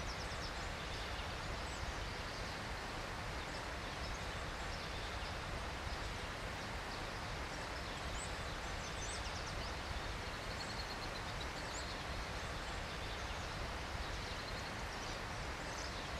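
Outdoor ambience: a steady even hiss with faint bird chirps and, about ten seconds in, a short high trill.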